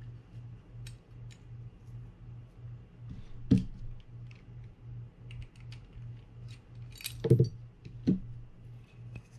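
Small metal parts of a fishing reel's bail assembly and precision screwdrivers handled and set down on a work mat: light scattered clicks, a sharp knock about three and a half seconds in and two more near the end. A steady low pulsing hum runs underneath.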